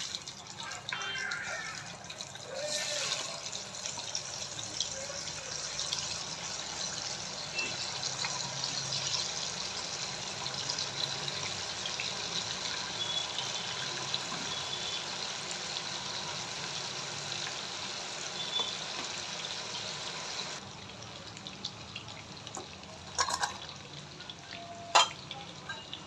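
Chicken pieces deep-frying in hot oil in a kadhai, with a steady sizzle. The sizzle drops away about twenty seconds in, and a few sharp knocks of utensils on the pan follow near the end.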